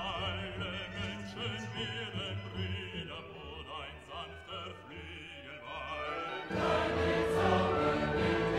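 Background music: operatic, choir-like singing with wavering vibrato notes, becoming louder and fuller about six and a half seconds in.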